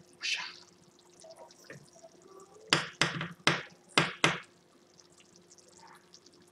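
A cooking spoon knocked five times against the rim of a pan of meat sauce, sharp taps a few tenths of a second apart, after a brief scrape of stirring near the start. A faint steady hum runs underneath.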